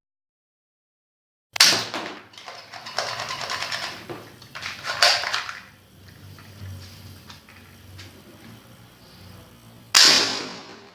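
Toy gun shooting sounds: after a short silence, a sharp shot, a stretch of rapid fire, another shot, then quieter clatter and a final sharp shot near the end.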